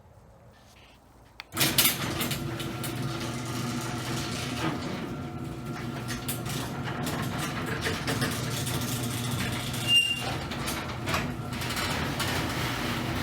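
A garage door opener starting with a click about a second and a half in, then its motor running steadily as it drives the door along its track.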